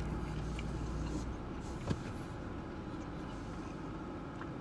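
Steady low hum and hiss of a car cabin, with a couple of faint small clicks, one about two seconds in.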